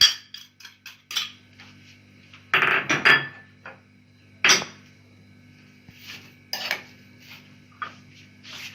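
A metal spoon clinking and scraping against a dish while caster sugar is spooned over cut fruit: scattered light taps, a longer scrape about two and a half seconds in, and a sharp clink about four and a half seconds in.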